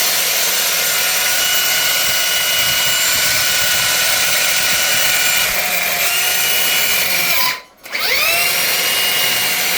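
RC car's electric motor whining at high revs, a steady high-pitched whine. Near the end it cuts out for a moment and spins straight back up, its pitch rising quickly as the throttle is reapplied.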